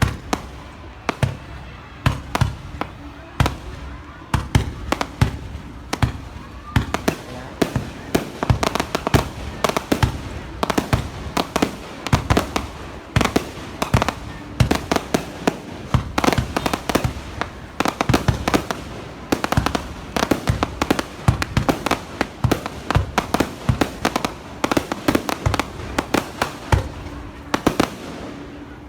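Fireworks going off in a dense, irregular barrage, several sharp bangs a second with crackling between them.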